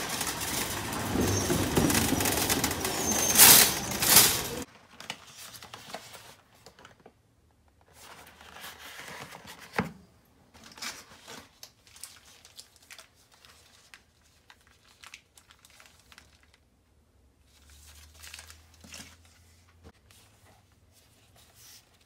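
Loud noise of a shopping cart being pushed, which cuts off suddenly about four and a half seconds in. After that, quiet crinkling and rustling of grocery bags and packages being unpacked and handled on a kitchen counter, with scattered light knocks as items are set down.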